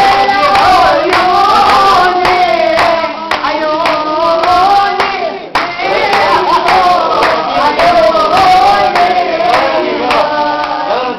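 Lebanese folk singing with hand clapping in rhythm, the sung line bending and held between breaths. It breaks off briefly a little past halfway, then resumes.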